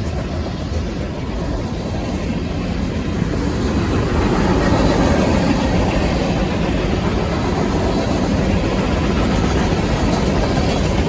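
Freight train passing close by: a steady rumble of the diesel locomotive and rolling cars that grows louder about three to four seconds in, with no horn.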